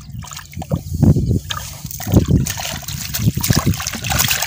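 A carp thrashing in a landing net in shallow water at the edge, with irregular splashes and sloshing water, the biggest about one and two seconds in.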